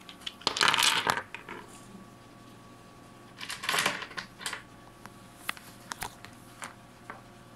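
Small hard stones being rummaged through and knocking against each other: two short rustling spells, then several sharp separate clicks near the end.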